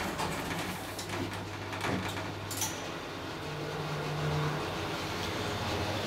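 1989 Schindler service elevator starting its run: a few sharp clicks of the car's machinery in the first seconds, then a steady low hum as the car travels, with a brief low tone a little past the middle.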